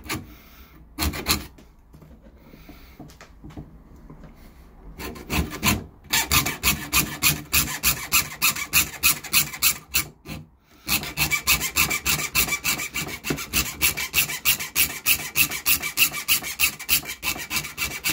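Hacksaw with a metal-cutting blade sawing through an Otto Lock's coated steel band held in a vise, in fast, even rasping strokes about three a second. It starts with a few slower, scattered strokes, then runs steadily with one short break near the middle.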